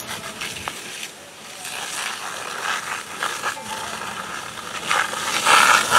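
Fire hose spraying water onto the smouldering debris of a burned wooden barn: a steady hiss that swells loudest near the end.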